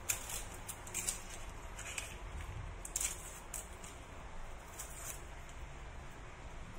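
Dry, papery onion skin crackling and tearing as an onion is peeled with a small knife, in a scattering of short, sharp crinkles.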